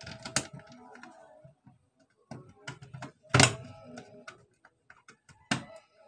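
Screwdriver driving a screw into the corner of a plastic switch board cover: small clicks and scrapes with three sharp knocks, the loudest about halfway through.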